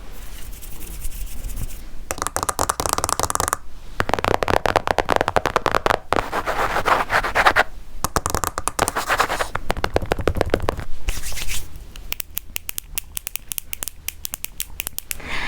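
Computer keyboard being typed on: rapid key clicks in bursts, broken by short pauses every couple of seconds.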